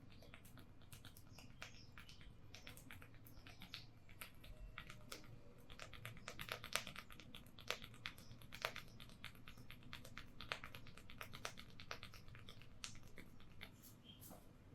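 Fingers rubbing and scratching through hair and over the scalp in a head massage, giving a dense run of crisp crackles and clicks, busiest in the middle.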